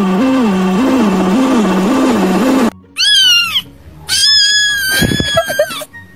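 A sound effect whose pitch wobbles up and down about twice a second, cutting off about three seconds in. Then high-pitched kitten meows: a short one, then a long drawn-out one.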